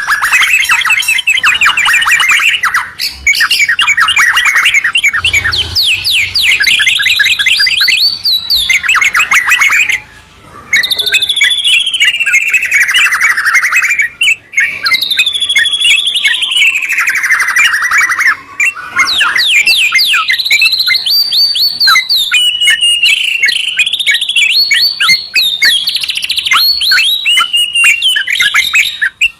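White-rumped shama and yellow-vented bulbul singing loudly together. The song runs almost without pause, mixing fast trills with long sweeping whistled phrases, and breaks off briefly about ten seconds in.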